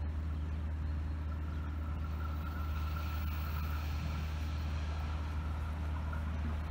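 Steady low outdoor rumble, with a faint thin whine about two to four seconds in, as a train approaches from far off.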